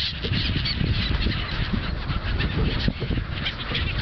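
A flock of gulls calling, with many short, overlapping cries, over a steady low rumble.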